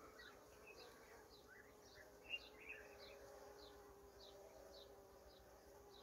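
Faint steady hum of honeybees at the hive entrance as the colony starts flying out at first light, with short high chirps repeating about twice a second.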